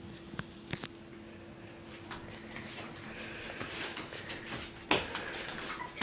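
Quiet room sound with a faint steady hum, broken by a few soft clicks and knocks, the sharpest a little before the end.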